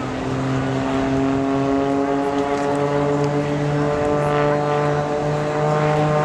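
Piston engine and propeller of an aerobatic monoplane flying overhead: a steady droning note that rises slowly in pitch, stepping up about two and a half seconds in.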